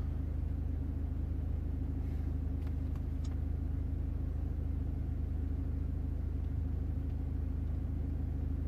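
BMW 520d's 2.0-litre N47 four-cylinder diesel idling steadily, heard from inside the cabin as a low, even drone.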